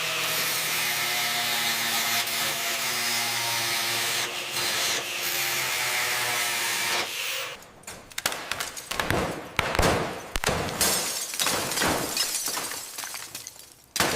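A power tool running steadily with a faint whine, which stops about seven seconds in; then a run of irregular knocks and scrapes of hand-tool work.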